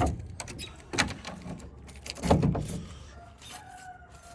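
A lock and door being worked: a few sharp clicks and knocks, the heaviest a little past two seconds in, then a faint thin squeak near the end.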